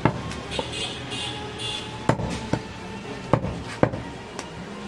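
A heavy butcher's cleaver chopping mutton on a wooden stump block: about six sharp, irregular chops through meat and bone into the wood, with music underneath.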